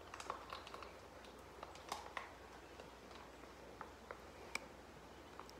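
Faint, scattered crinkles and small clicks from handling an opened foil MRE entrée pouch.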